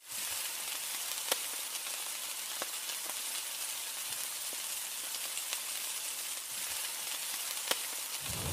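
Hot oil sizzling in a frying pan as food is basted: a steady hiss with a few sharp pops.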